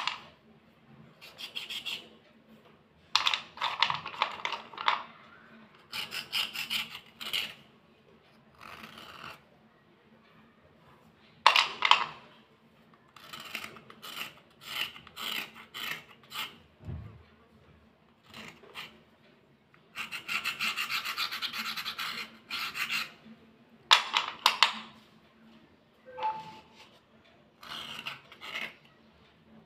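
A metal file scraping along a white slate pencil in runs of quick, dry strokes, with short pauses between the runs and one longer unbroken run about two-thirds of the way through.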